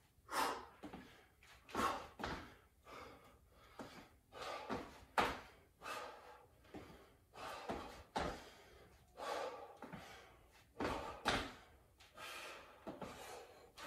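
Sneakers stepping and landing on a wood floor in an irregular quick-footwork pattern, with hard breathing between the steps.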